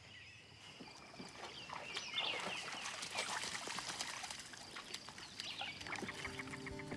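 Faint lake ambience: water splashing and trickling around a swimming dog, with small bird chirps in the background.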